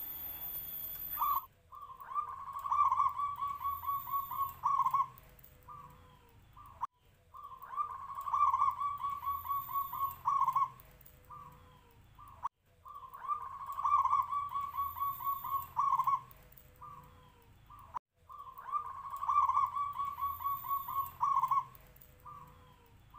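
Local-strain zebra dove (perkutut lokal) cooing: a rapid rolling run of notes followed by a few short coos, the phrase repeated four times about every five and a half seconds.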